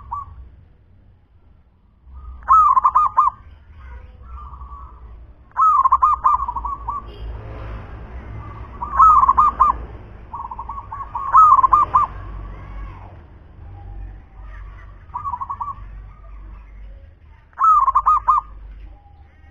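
Local-strain zebra dove (perkutut) cooing. It gives short rolling phrases of rapid pulsed coos, about six of them, one every two to three seconds.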